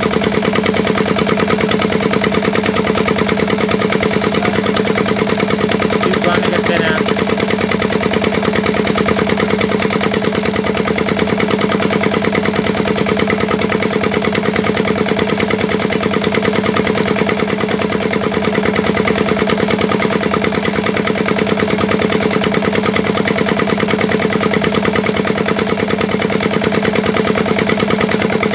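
An engine running steadily at one constant speed, with an even pitch and a fast, regular pulse that does not change.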